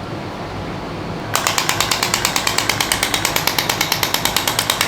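Radial shockwave therapy handpiece starting to fire about a second in: a rapid, even train of sharp clicks, about twelve a second.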